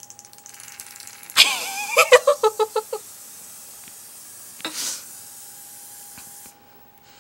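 Aerosol can of carpet cleaner spraying in a steady hiss for about five seconds, cut off sharply near the end. A voice with a few quick pulses sounds over the hiss for about a second and a half, soon after it starts.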